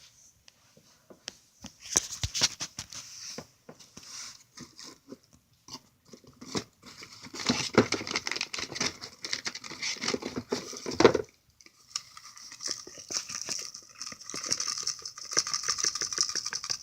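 Packaging paper and plastic crinkling and rustling, with tearing and scattered clicks, loudest and busiest in bursts from about seven seconds in and again in the last few seconds.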